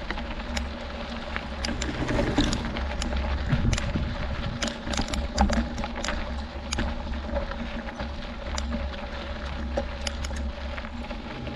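Mountain bike rolling over a rocky gravel road: the tyres crunch and the bike rattles with scattered sharp clicks, over a steady hum and a low wind rumble on the microphone.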